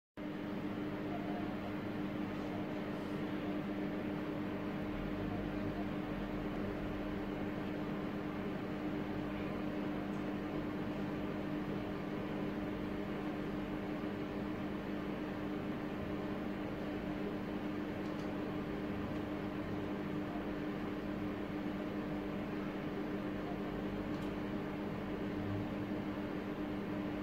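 A steady machine-like hum over an even hiss, carrying two low steady tones, cutting in suddenly from silence at the start and staying unchanged throughout.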